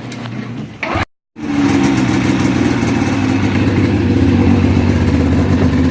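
Polaris Indy 600 snowmobile's two-stroke twin engine running steadily and loud through a newly fitted aftermarket muffler can, after a brief silent break about a second in.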